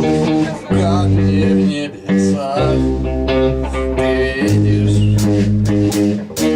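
Amateur band rehearsing a song: guitars over a bass guitar, playing sustained chords that change about once a second. Quick strummed ticks come in over the second half.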